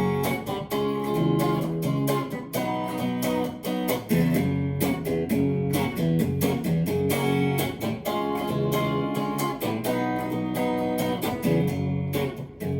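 Instrumental break of a song: guitar chords strummed in a steady rhythm, with no singing.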